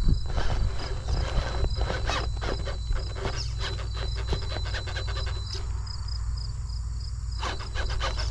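RC rock crawler working over rough rocks: a rapid run of clicks and scrapes from tyres and chassis on stone, pausing about five and a half seconds in and starting again near the end, over a steady low rumble. A thin high whine stops sharply about five and a half seconds in, and insects chirp faintly in the background.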